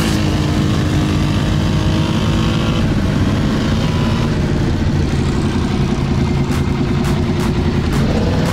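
Quad (ATV) engine running close by under throttle. It holds a fairly steady note at first, then turns into a rougher, pulsing low rumble from about four seconds in.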